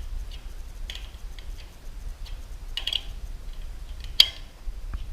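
Hand tools clicking against a garage door opener's chain adjustment bolt and nut as it is turned clockwise to take up a slack chain. The metal clicks come at uneven intervals, the sharpest about four seconds in, over a steady low hum.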